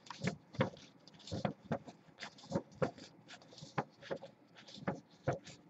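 A printed paper sheet handled and shifted in the hand: soft rustling with scattered light, irregular clicks and taps.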